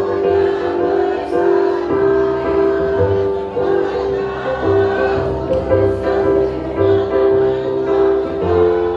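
An adult choir singing long held notes over an instrumental accompaniment with a steady bass pulse.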